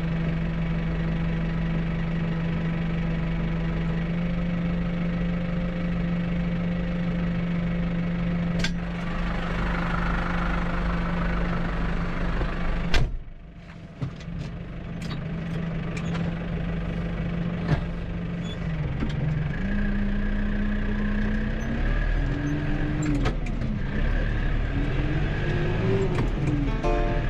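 Tractor engine running at a steady speed, broken off suddenly about halfway through. It then comes back with its pitch rising and falling as the revs change. Music starts right at the very end.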